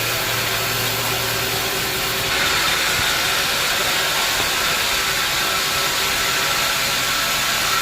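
Band sawmill running with a steady mechanical hiss and hum. About two seconds in, the hiss grows louder and brighter and holds there.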